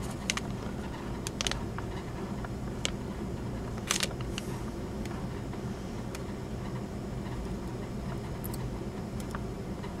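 Small sharp clicks and ticks of an iPod circuit board and its thin metal chassis frame being handled and pushed apart, the loudest about four seconds in, over a steady low hum.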